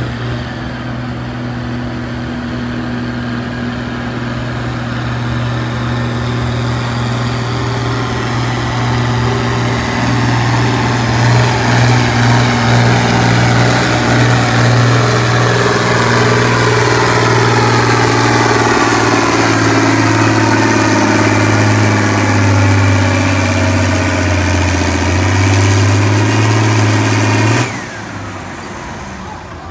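John Deere 4440 farm tractor's six-cylinder turbo-diesel running at full throttle under heavy load as it drags a weight-transfer pulling sled. The engine note holds steady, then sags lower in pitch as the sled bogs it down, and the engine is throttled back suddenly near the end as the pull stops.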